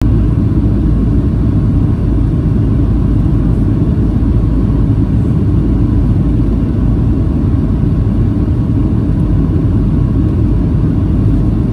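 Steady low cabin rumble inside a Boeing 737-800 on approach, from its CFM56-7B turbofan engines and the airflow over the fuselage, heard from a window seat behind the wing.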